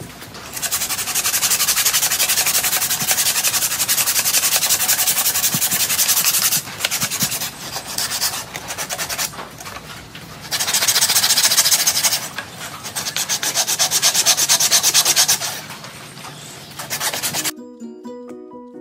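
Sandpaper rubbed by hand over dry root wood, a loud scratchy rasp in several spells of fast strokes with quieter rubbing between them.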